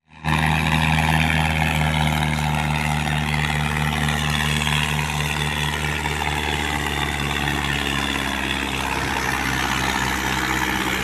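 Tractor diesel engine running steadily at a constant speed.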